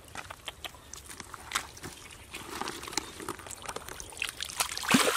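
Water trickling and dripping with small splashes in shallow muddy water as someone wades through it; the splashing grows louder and busier near the end.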